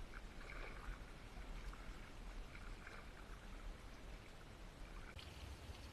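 Faint water sounds around an inflatable kayak as it is paddled: soft splashes and trickling now and then, over a low steady rumble.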